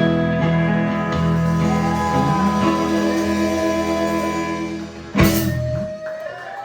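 Live guitar-led country-rock band holding out the final chord of a song, ended by a sharp hit about five seconds in, after which the music stops.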